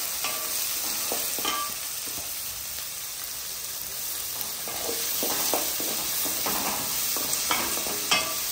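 Chopped onions sizzling in hot oil in a metal kadai while a wooden spatula stirs them, scraping against the pan now and then. The onions are being sautéed in a mustard-seed and dal tempering.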